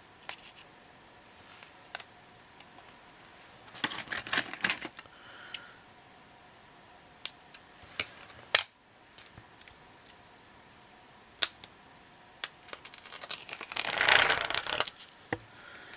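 Paper-craft handling: scattered sharp clicks and snips of small scissors cutting paper, with short crackly rustles of paper. About fourteen seconds in, a longer papery rustle as a thin backing strip is peeled away.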